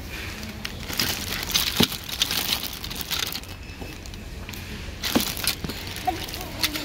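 Clear plastic bags crinkling and rustling as bagged die-cast toy cars are handled, with a couple of sharp knocks.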